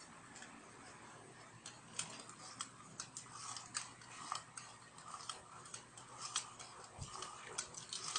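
Faint, irregular small clicks and taps of a metal spoon against a small steel bowl as a toddler eats.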